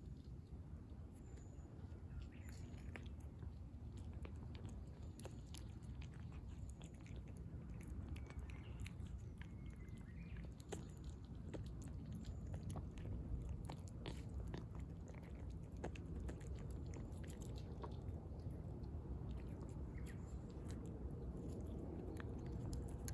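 Calico cat chewing and crunching dry kibble mixed with wet food, many small crisp crunches at an irregular pace. A steady low rumble sits underneath.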